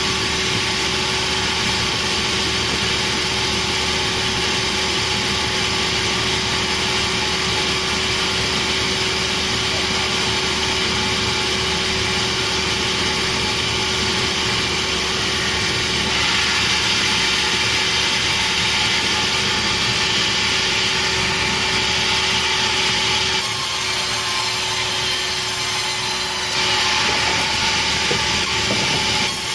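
Sawmill machinery running steadily: a constant machine hum with a dense sawing hiss over it. The hiss turns brighter and harsher for about three seconds near the end.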